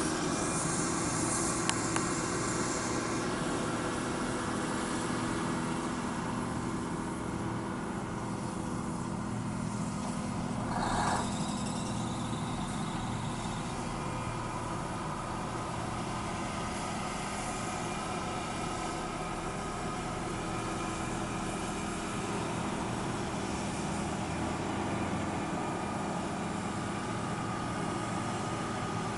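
Heavy engine of barley-harvesting machinery running steadily, with a brief louder burst about eleven seconds in.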